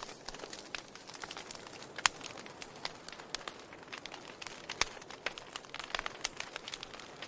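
Burning wood crackling: irregular sharp snaps and pops over a soft hiss, with a louder pop about two seconds in and another near five seconds.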